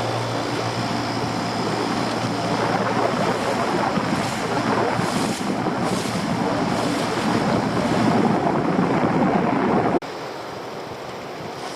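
Wind buffeting the microphone and sea water sloshing around a small boat. The noise swells and then drops off abruptly about ten seconds in.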